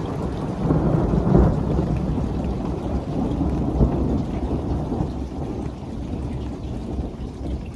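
Heavy rain pouring down, with a low rumble of thunder that swells about a second in and dies away toward the end.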